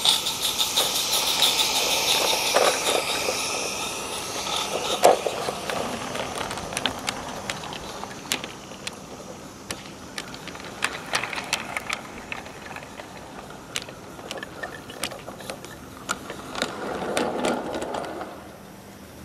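Live-steam garden-scale Roundhouse Fowler locomotive passing close by with a steam hiss and the whirr of its running gear, followed by the rapid, uneven clicking and clatter of the small freight wagons' wheels on the track as the train goes by. The sound drops away about eighteen seconds in.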